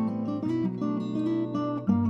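Background music: strummed acoustic guitar, with sharp chord strikes about half a second in and near the end.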